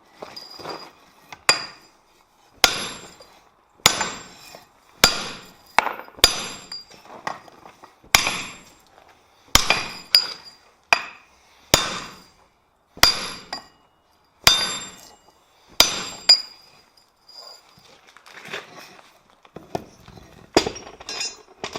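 Heavy hammer blows on a thick slab of hot steel over an anvil, about a dozen strikes a little over a second apart, each with a high metallic ring, straightening a bent piece. Over the last few seconds the blows give way to softer, irregular knocks and clinks.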